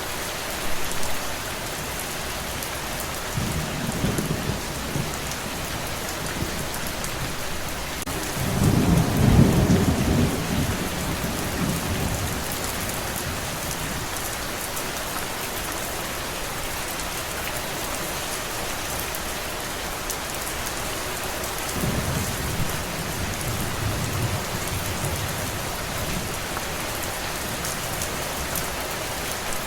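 Steady rain with three low rolls of thunder: a short one about four seconds in, the loudest about nine seconds in, and a softer one about twenty-two seconds in.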